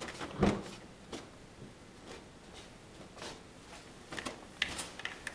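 Cats scuffling in a fabric-covered wire dog crate: scattered rustles and scratches of paws on the bedding and crate, with a soft thump about half a second in.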